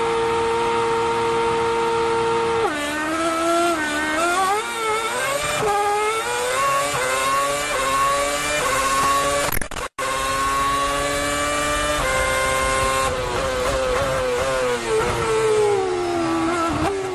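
Formula 1 V8 engine at high revs: a steady high note for about three seconds, then the pitch climbs again and again through quick upshifts. After a brief break in the sound it climbs once more, holds, and falls away through downshifts near the end.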